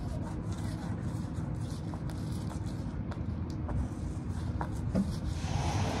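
Gloved hand rubbing and scraping grease over a steel plough mouldboard with faint ticks, coating it against rust, over a steady low engine hum. Wind rushes on the microphone near the end.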